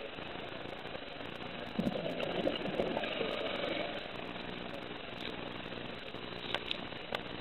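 Scuba diver's regulator exhaling, a burbling rush of bubbles lasting about two seconds, starting a couple of seconds in. It gives way to a steady low hum, with two short clicks near the end.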